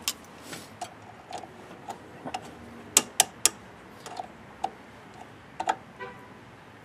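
Irregular small metal clicks and taps of a wrench working the nut on a portable generator's ground terminal, fitting a copper ground wire connector.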